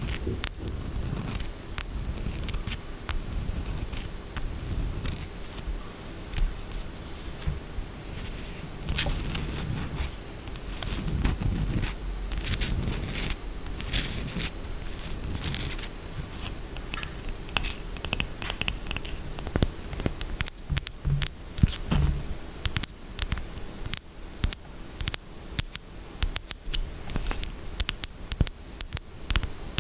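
Close-miked scratching and tapping on a bar of soap and its packaging: a dense run of short scratchy strokes, with more separate sharp taps in the second half.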